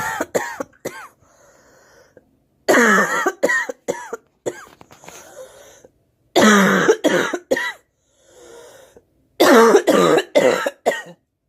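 A girl coughing in four fits of three or four coughs each, with a faint breath between fits.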